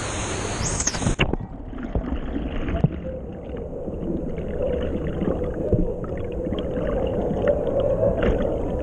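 Water sound that turns abruptly muffled about a second in, then dull bubbling and gurgling with small clicks, as heard with the microphone underwater in a canyon pool.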